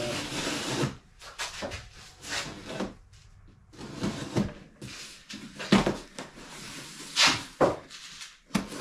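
A knife slicing through packing tape on a cardboard box, with irregular scrapes, crackles and knocks as the cardboard is handled. A steady hum from the water system's pump cuts off about a second in.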